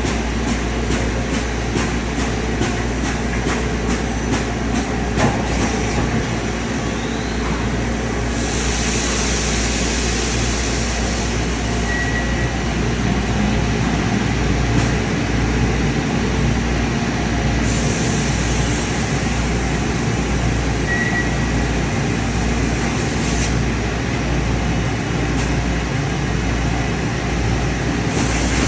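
Mori Seiki DuraVertical 5080 CNC vertical machining center running under power, a steady mechanical hum with a low drone. Rapid faint ticking runs through the first several seconds. A high hiss switches on about eight seconds in, fades, returns near the middle, stops, and comes on again near the end.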